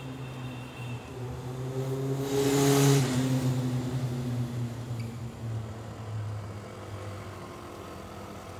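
A motor vehicle driving past on the street: its engine note and tyre noise swell to a peak about three seconds in, then the engine pitch drops and fades as it moves away.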